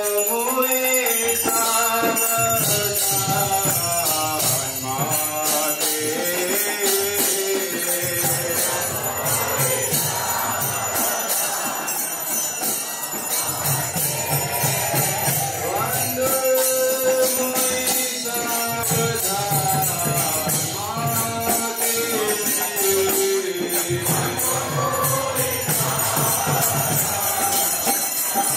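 Devotional chanting sung to a repeated melody over steady jingling metal percussion; the melodic phrase comes round again about halfway through.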